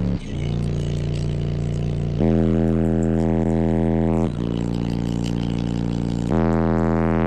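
Car audio subwoofers playing a bass-heavy track of long held low notes, the note changing in steps about every two seconds.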